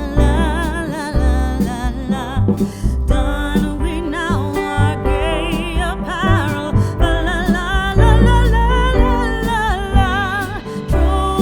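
Background music: a song with a vibrato-laden singing voice over guitar and a heavy bass.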